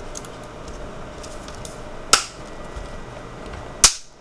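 Two sharp plastic clicks, about two seconds in and again near the end, the second the louder, with a few faint ticks between: the snap-fit clips of a Dell Latitude D630 laptop's plastic case being pressed shut.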